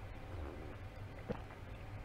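Drinking from a mug, close to the microphone: a soft sip, then a single short gulp just over a second in, over a faint low hum.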